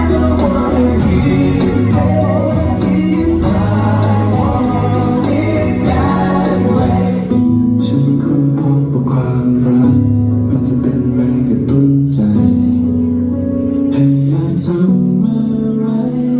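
Live stage performance: singing over a full-band backing, which breaks off about seven seconds in. A sparser song with guitar and held notes follows.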